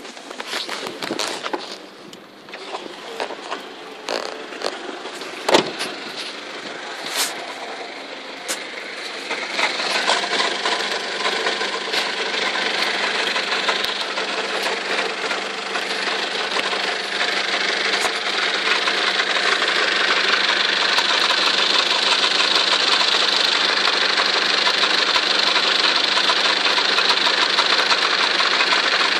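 Mitsubishi Pajero's 4M41 3.2-litre four-cylinder turbodiesel running, with an extraneous rattle that the owner is recording as an engine fault. Sharp knocks come through in the first several seconds, then from about ten seconds in the engine noise gets louder and stays steady.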